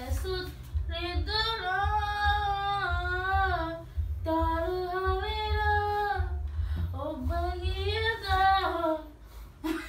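A woman singing without accompaniment in long, drawn-out, wavering notes: three phrases with short breaks about four and seven seconds in.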